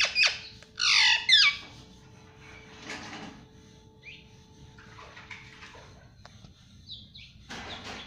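Indian ringneck parakeet (rose-ringed parakeet) squawking: a quick run of loud, harsh calls falling in pitch in the first second and a half, then a few short, faint chirps.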